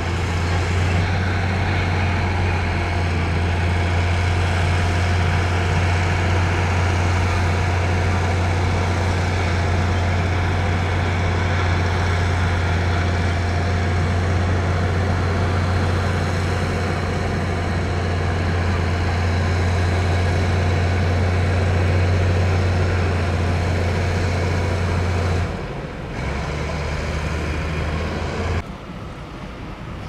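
Heavy diesel engine of earthmoving machinery running steadily with a deep drone. The sound drops suddenly near the end, and then again.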